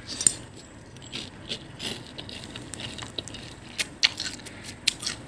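Eating a crisp fried banana-and-chocolate spring roll: scattered crunches and short, sharp clicks, about half a dozen.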